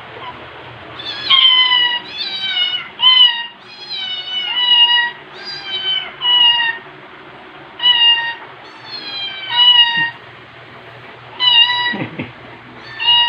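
Domestic cat meowing over and over: about a dozen short, high-pitched meows in quick succession, several falling slightly in pitch. There is a brief soft knock near the end.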